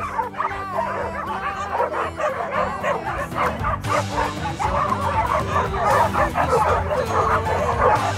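A large pack of dogs barking, yipping and whining excitedly all at once, with many voices overlapping. Music plays underneath.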